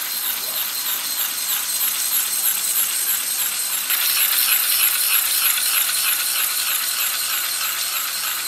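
Wired 3D-printed walking robot running: its small motor turns the plastic cam mechanism with a steady whir and a fast plastic rattle as the legs step on carpet, a little louder from about four seconds in.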